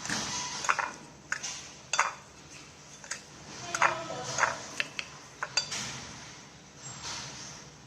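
Kitchen utensils and pots clinking and knocking, a dozen or so sharp irregular clicks, some with a short ring, over a light hiss.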